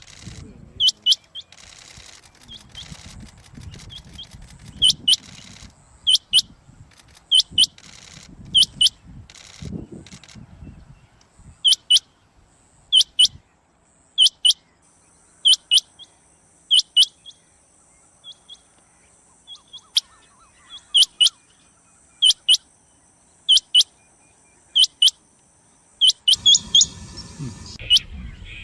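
Rain quail calling: loud, sharp, high double notes, repeated about every second or so.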